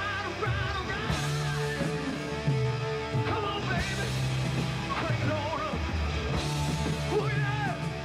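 Live hard rock band playing: electric guitar, bass and drums, with a wavering, bending lead line over the top.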